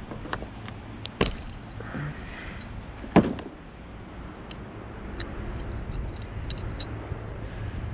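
Light clicks and one sharp metal clank about three seconds in as a rusty steel corner bracket pulled from a rotted wooden garden box is handled, with a few faint ticks afterwards. A steady low rumble runs underneath.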